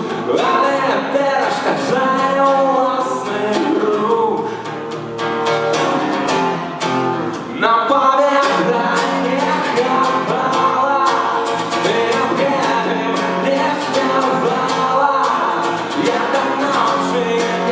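A male voice singing a song to guitar accompaniment.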